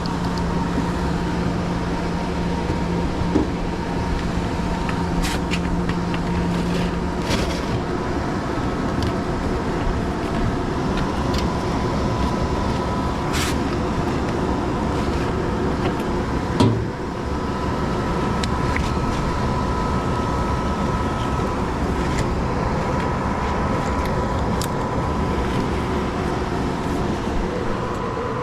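Residential HVAC system running: steady fan and airflow noise with a faint steady tone. A low hum drops out about seven seconds in, and there is a short knock about seventeen seconds in.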